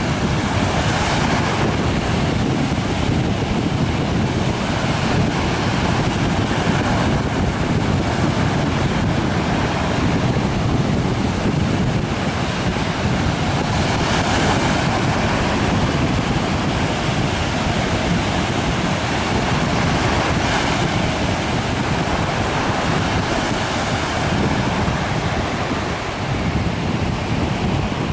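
Sea surf: small waves breaking and washing up a beach, with a wave surging up every several seconds. Wind buffets the microphone, adding a steady low rumble.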